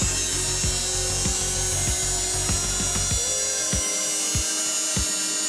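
A 12-volt M-222 tractor heater-blower electric motor running free with no load, with a steady high whine, under background music with a beat.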